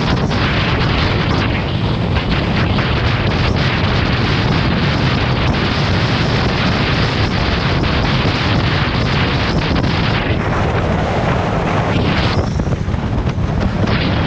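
Wind buffeting a motorcycle-mounted camera's microphone at road speed, a loud, steady rush with the motorcycle's engine running underneath.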